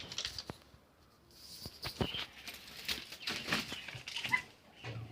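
Rustling and irregular clicks of a birdcage being handled while its water is topped up, with a caged bird fluttering its wings.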